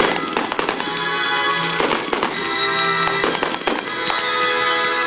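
Aerial fireworks shells bursting in a series of sharp bangs, several coming in close pairs, over music with sustained tones that plays throughout.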